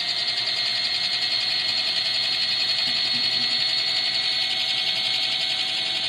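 Portable mini turbo washing machine's small electric motor running with a steady high-pitched whine.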